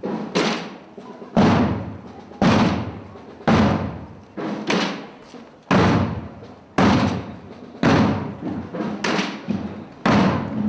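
Slow, steady drumbeats of a procession's marching drum, about one stroke a second, each dying away before the next, with lighter strokes in between.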